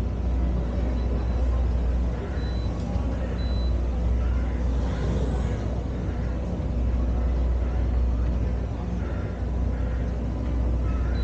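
Steady low rumble of a riverboat ride, with people chatting faintly in the background.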